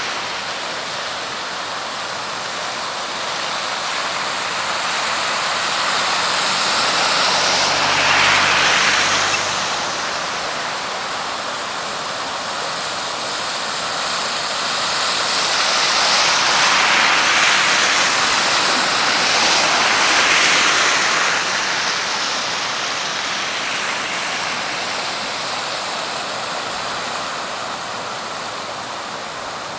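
Floodwater rushing down a normally dry desert riverbed, a steady wash of water noise. It swells louder for a couple of seconds about a quarter of the way in, and again for several seconds around the middle.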